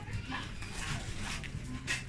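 Background noise of a busy market stall, with a sharp click near the end.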